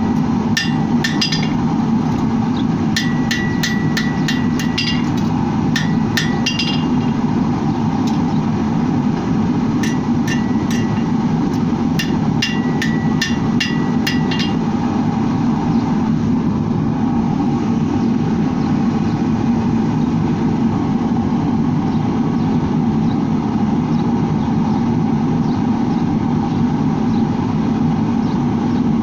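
Hammer blows on hot steel over an anvil, struck in quick runs of several a second, each with a bright ring, until about halfway through. A steady low drone runs underneath and continues alone after the hammering stops.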